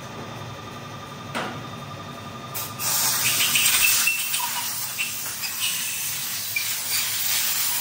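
A low steady hum with a single click, then about two and a half seconds in a loud, even spraying hiss starts and keeps going, with faint squeaks over it.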